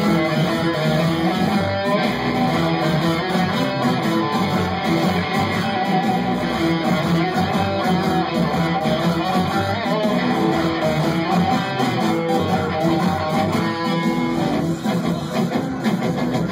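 Live rock band playing an instrumental passage without vocals, electric guitar and keyboard over drums.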